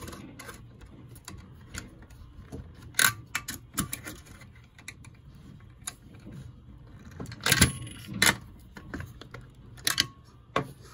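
Nut driver clinking against the nuts and metal bracket plate of a rotation motor as the bracket nuts are tightened: scattered sharp metallic clicks, with two louder clinks about two-thirds of the way through.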